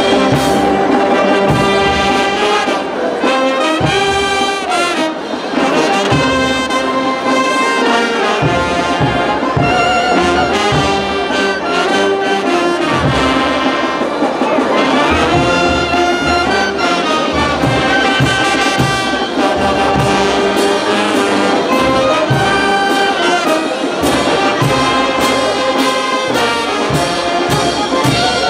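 Brass band playing a melody, trumpets and trombones together, over a steady low beat.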